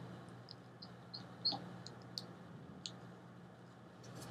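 Quiet room tone with a steady low hum and a scattering of faint, light ticks and clicks, one a little stronger about a second and a half in.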